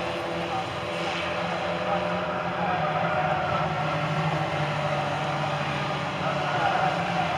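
Ministox stock cars, Mini-bodied racing cars, running together on the track at race speed. Their engine notes blend into one continuous sound.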